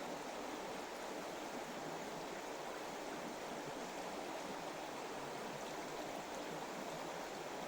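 Stream water flowing steadily, a continuous rushing with no breaks.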